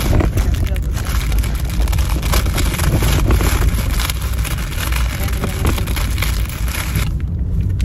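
Steady noise of a moving car heard from inside: a strong low rumble with a hiss over it that drops away about seven seconds in.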